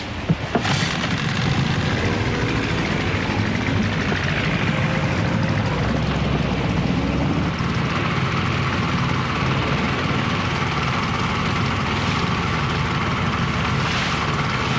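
Loud, steady engine-like noise that starts abruptly and holds evenly throughout, with a few faint steady tones in it.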